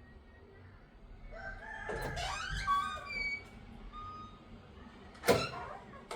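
A rooster crowing: one long call that rises and then holds, about a second in. A single sharp knock follows near the end.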